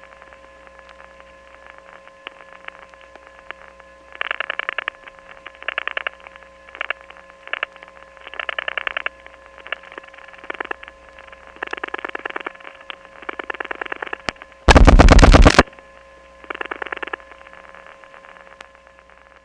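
Telephone line hum from a number one step office: the trunk hums steadily on the connector switch's balanced power, with a few high steady tones on top. Short bursts of buzzing switch clicks break in every second or two, and about 15 s in a loud burst of dial-pulse clicks is heard as the next digit is dialed.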